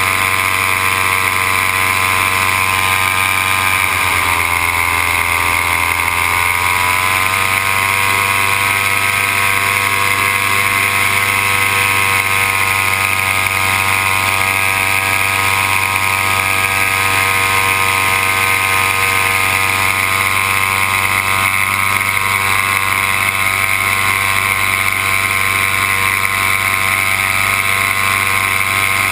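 Paramotor engine and propeller running steadily as heard from the pilot's seat in flight. It is throttled back about four seconds in and brought back up to cruising power a few seconds later.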